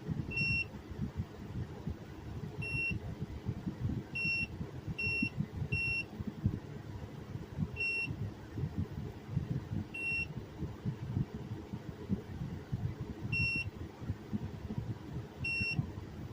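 Short single electronic beeps from a car electric kettle's control panel, about nine of them at uneven intervals, over a steady low rumble.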